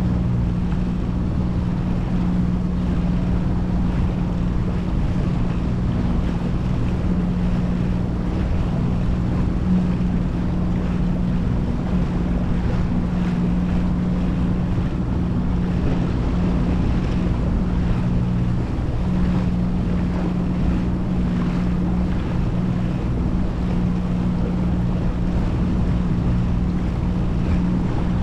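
Outboard motor of a small open powerboat running steadily at slow speed, a constant droning hum, with wind noise on the microphone.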